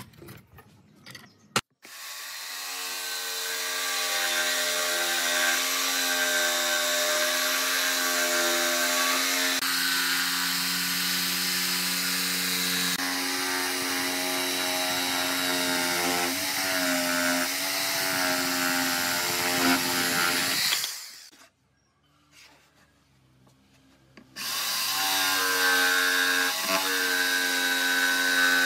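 Corded jigsaw cutting through a pine board: the motor starts about two seconds in and saws steadily with a buzzing hum and the rasp of the blade, its pitch wavering a little under load. It stops for about three seconds near the end, then starts again and keeps cutting.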